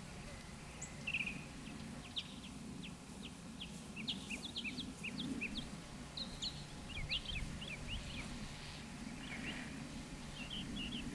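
Birds chirping in quick series of short, high chirps, thickest through the middle and again near the end, over a steady low background rumble.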